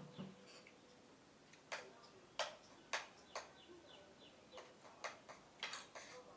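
Eating sounds: a series of sharp, irregular clicks, bunched closer together past the middle, with faint high bird chirps behind them.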